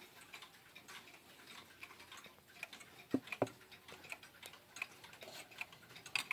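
Howard Miller 612-412 regulator wall clock ticking. Two louder knocks come a little after three seconds in, from handling the clock's case.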